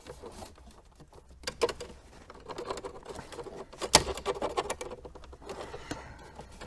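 Plastic dashboard trim panel on a Renault Duster clicking and rattling as it is pried loose from its clips, with one sharper click about four seconds in.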